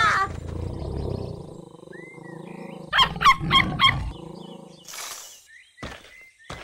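Cartoon tiger growling low, then a small dog barking four quick times at about three seconds in, with the growl still under it. A brief swish follows near five seconds.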